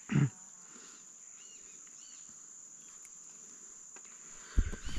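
Steady high-pitched drone of insects, with a few faint short chirps over it. A brief loud sound right at the start, and low knocks and rumbling from about four and a half seconds in.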